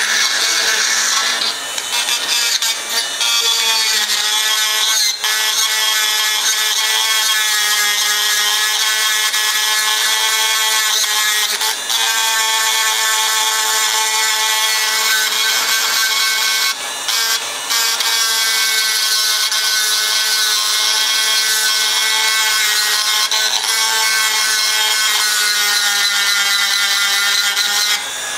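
Handheld rotary tool grinding a finned metal casting: a steady high whine over a grinding hiss. Its pitch wavers slightly as the bit is pressed into the work, and it briefly drops away a few times before stopping at the end.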